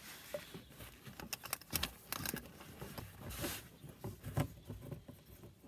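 Fabric tool pouch rustling, with light clicks and scrapes of hands fitting it onto a plastic mounting bracket, and a short rustle about three and a half seconds in.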